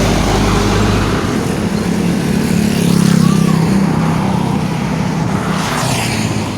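Heavy road vehicle engine running loud and steady, passing amid traffic road noise.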